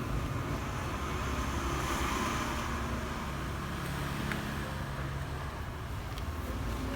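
Steady low background rumble and hiss, with a few faint clicks.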